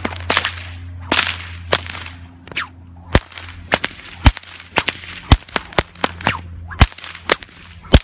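A 4.5-foot 550 paracord stock whip, the light gray one without ball chain in its core, being cracked over and over in quick succession. It gives sharp cracks about two a second, coming faster in the second half.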